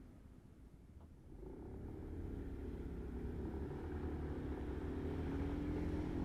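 Motorbike engine pulling away: a low hum comes in about a second in and grows steadily louder while its pitch creeps up as the bike gathers speed.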